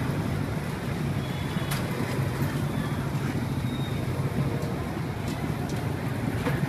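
Steady low rumble of street traffic with an engine hum running under it, and a few faint clicks and knocks.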